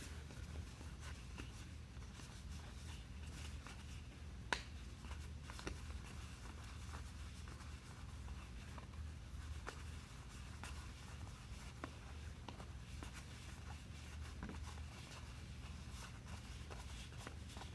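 Faint rustling and scattered soft clicks of trading cards being handled and sorted, with one sharper click about four and a half seconds in, over a low steady hum.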